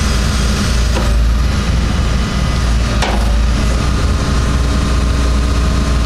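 Hitachi ZX225 hydraulic excavator's diesel engine running steadily under load as the boom and arm are worked, with two short metallic knocks about one and three seconds in.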